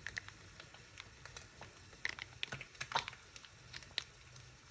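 Scattered light clicks and taps of kitchen items and packaging being handled, over a low steady hum.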